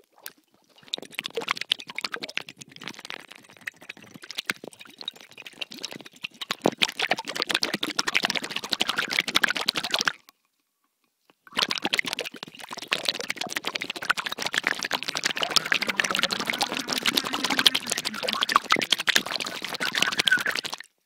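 Air bubbling out of bubbler tubing underwater, picked up by a submersible piezo contact microphone as a dense crackling stream of bubbles. The stream stops for about a second about ten seconds in, then resumes, louder.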